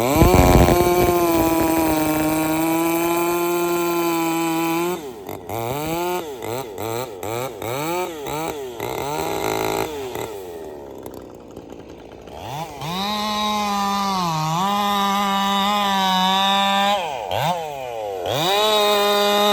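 Ported Jonsered 2165 two-stroke chainsaw revved up to full throttle and held there in the cut, then blipped on and off about five times and dropped back near idle. It is then opened up again to full revs, with a brief dip in pitch under load, eased off, and run up once more near the end.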